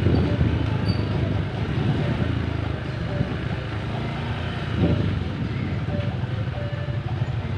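Wind buffeting the microphone, heard as a steady low rumble.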